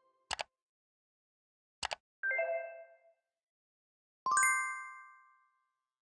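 User-interface sound effects: two short mouse clicks, then a short chime, then a bright bell ding that rings out for about a second.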